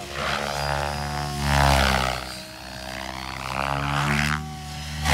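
Electric 3D RC helicopter flying freestyle aerobatics: a steady rotor and motor drone whose pitch glides up and down. It swells loudest about a second and a half in, and again near the end.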